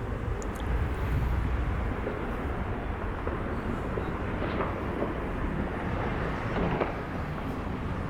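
Outdoor city-street din: a steady wash of noise with a stronger low rumble about a second in and a few faint distant firecracker pops.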